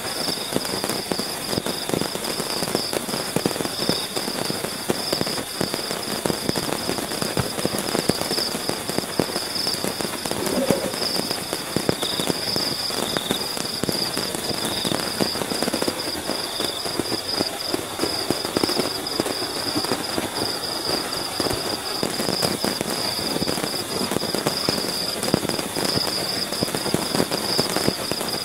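Heavy rain pattering densely on the tarp over a tent, heard from inside the tent. A steady, high-pitched pulsing tone runs above the rain.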